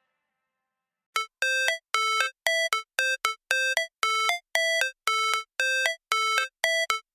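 Background music: after about a second of silence, a bright electronic synth riff of short repeating notes, about two or three a second, with a ringtone-like chime.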